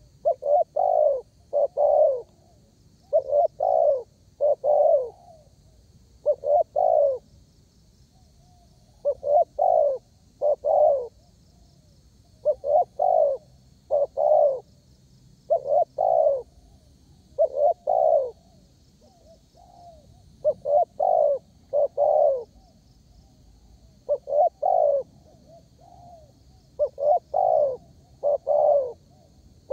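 Spotted dove (derkuku, tekukur) singing persistently, a steady string of cooing phrases of two or three notes each, repeated every couple of seconds. Faint high-pitched chirring underneath.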